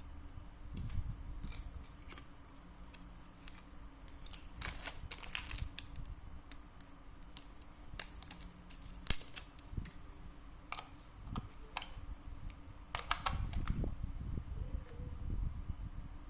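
Handling of a ZOYI ZT102A digital multimeter: scattered plastic clicks and taps with low rubbing, the sharpest click about nine seconds in and a quick run of clicks near thirteen seconds.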